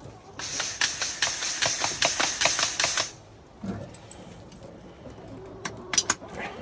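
Chicken feed crumbles poured into a galvanized metal tube feeder, a dense rattling hiss lasting almost three seconds. About two seconds later come a few sharp metallic clinks as the feeder's wire bail handle is lifted.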